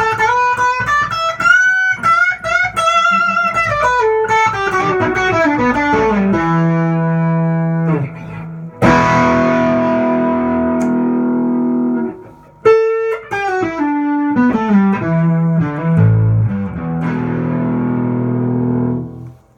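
Electric guitar, a custom Stratocaster, played through a Mesa/Boogie Express 5:25 combo amp. It plays fast lead runs with string bends, then struck chords left to ring out and fade, another quick run, and held notes that stop near the end.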